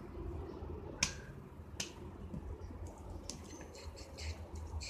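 Two sharp clicks about a second into the sound and just under a second apart, then a run of lighter clicks and rustles, over a low steady hum: objects being handled as a child reaches for and picks up a toy box.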